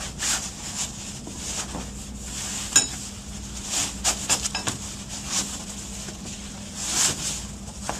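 Fabric travel bag rustling and swishing in repeated short strokes as it is worked down over a folded playard, with a sharp click a little under three seconds in and a few lighter clicks about a second later, over a steady low hum.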